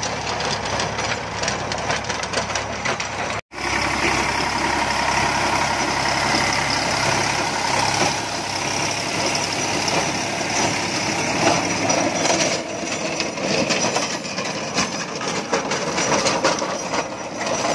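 Eicher 548 tractor's diesel engine running under load, driving a rotavator that churns through dry soil. The sound drops out for an instant about three and a half seconds in.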